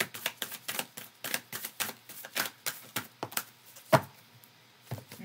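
Tarot deck being shuffled by hand, the cards clicking against each other about six times a second before the shuffling stops; a single sharp knock about four seconds in.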